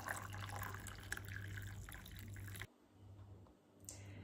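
Water poured from a glass kettle into a mug over a tea bag, filling it. Stops abruptly about two and a half seconds in.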